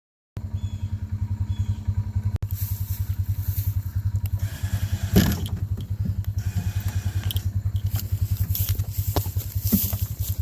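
Engine running steadily at a low speed, a regular thudding pulse, with a few knocks and rattles over it, the loudest about five seconds in. It starts abruptly just under half a second in.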